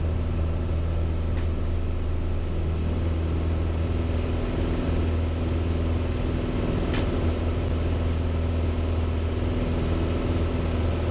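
Piper Cherokee 180's four-cylinder Lycoming engine and propeller running at full takeoff power, a steady drone heard from inside the cabin during the climb just after liftoff. Two faint clicks, about a second in and again about halfway through.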